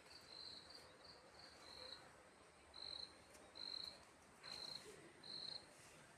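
Faint, high-pitched chirping of an insect such as a cricket: short chirps repeating at uneven intervals over a low background hiss, the ones in the second half a little louder.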